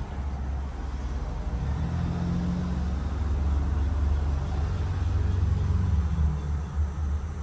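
Disney Skyliner gondola cabin in motion along its cable: a steady low rumble, with a low hum that joins about two seconds in and fades near the end.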